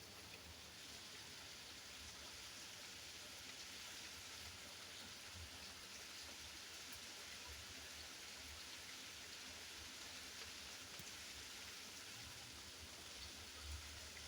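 Steady rain falling, a faint, even hiss, with a few soft low bumps.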